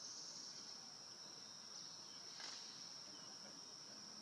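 Insects trilling steadily at one high pitch, faint, with a single soft click a little past halfway.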